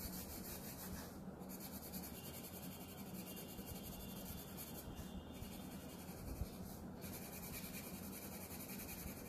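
Brown colored pencil shading on drawing paper: a faint, steady scratchy rubbing of back-and-forth strokes, with a few brief pauses as the pencil lifts.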